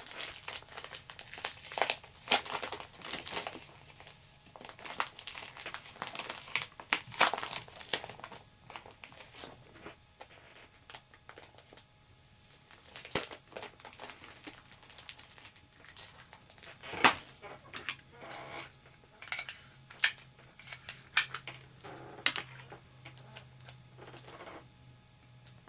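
Thin plastic comic-book bag crinkling and crackling in irregular bursts as a comic and its backing board are handled and slid in, with a few sharp snaps of the plastic.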